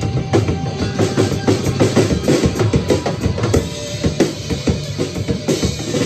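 Acoustic drum kit played hard and busily along to a rock song: a rapid, unbroken run of bass drum, snare and cymbal strokes, with the recording's guitars and bass sustaining underneath.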